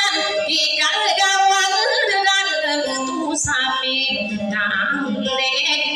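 A woman singing a Maranao dayunday song, with long wavering, ornamented notes, over plucked acoustic guitar and a second plucked string instrument.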